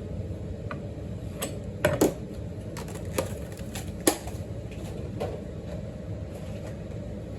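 Scattered light clicks and taps of food and packaging being handled and set down on a plastic tray, with a few sharper knocks about two and four seconds in, over a steady low hum.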